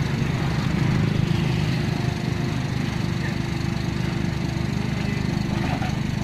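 Komatsu PC45 mini excavator's diesel engine running steadily under working load while the machine swings its upper structure and arm. A steady higher tone joins the engine about two and a half seconds in.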